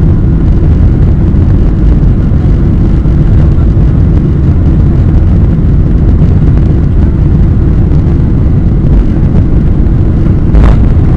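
Inside the cabin of a Boeing 747-400 moving along the ground, there is a loud, steady low rumble. A brief thump comes near the end.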